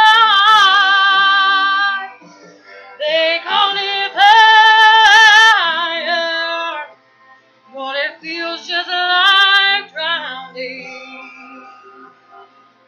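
A woman singing solo in three phrases of long, drawn-out notes with a wavering vibrato, growing quieter and trailing off near the end.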